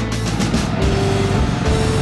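Background music over the low, steady running of an ATV engine at slow riding speed.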